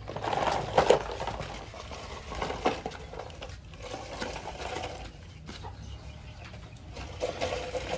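Plastic toy dump truck loaded with dirt being handled and pushed over dirt ground: scraping with sharp plastic knocks, the loudest about a second in and another a little before the three-second mark.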